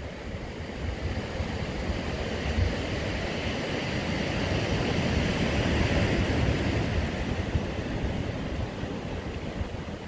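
Ocean surf breaking and washing over rocks, one long wash swelling in the middle and easing off, with wind buffeting the microphone.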